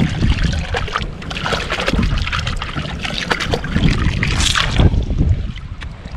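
Water splashing and trickling as gloved hands scoop mud and small shellfish up from a shallow muddy bottom and plunge back in, with many small crackling clicks. A heavy low rumble of wind on the microphone runs underneath.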